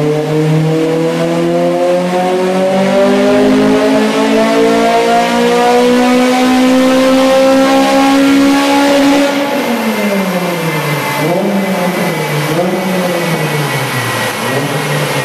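Honda Integra Type R's 1.8-litre four-cylinder on a chassis dyno during a power run: the engine revs climb steadily for about nine seconds, then drop sharply as it comes off the throttle, the revs falling with a few brief rises and dips as it winds down.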